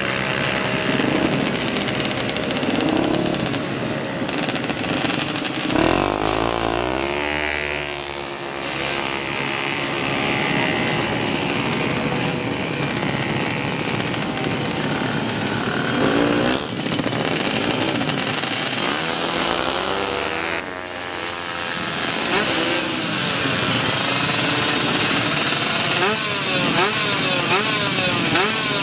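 Tuned drag-racing motorcycle engines revving, their pitch rising and falling again and again, with quick repeated rev blips near the end.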